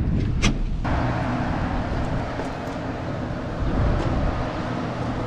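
A vehicle running, with a low steady rumble and a single sharp click about half a second in; from about a second in a broad rushing noise of wind or road noise joins it.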